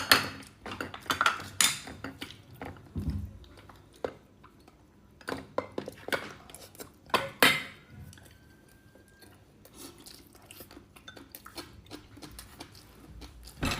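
Tableware clinking and clattering: utensils knocking against bowls and dishes in scattered sharp clinks, with quieter stretches between.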